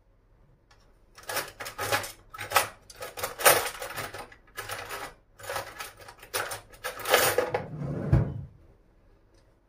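A teaspoon clinking and scraping against glass jars in a run of quick knocks and rattles, with a dull thud near the end.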